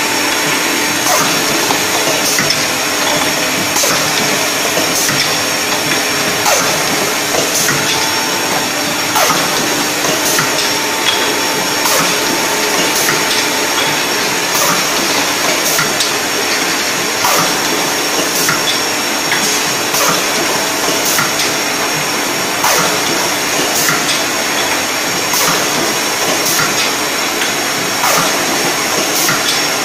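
Automatic pickle jar filling machine and conveyor running: a steady mechanical hiss and hum, with short clicks about once a second as the line cycles.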